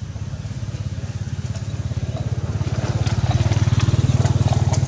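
A small engine running with rapid, even firing pulses, growing louder for about three seconds and then holding steady, as a motorbike drawing near would.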